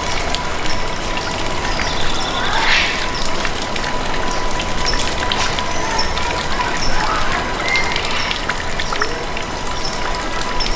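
Steady rushing noise, like running water, with short high chirps repeating about once a second and a brief gliding whistle about three seconds in.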